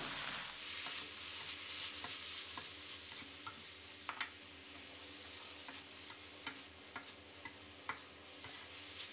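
Water spinach and pork stir-frying in a steel wok: a steady sizzle that eases off after the first couple of seconds, with the metal spatula clicking and scraping against the pan now and then.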